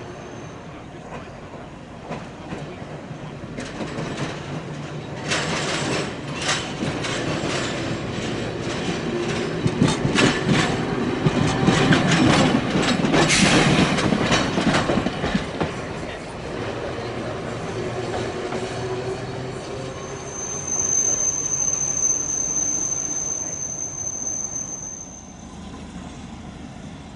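Hiroden streetcar running over the track, its wheels clattering over rail joints and points in a quick run of clicks that grows loudest midway. About twenty seconds in, a high steady wheel squeal sounds for about five seconds.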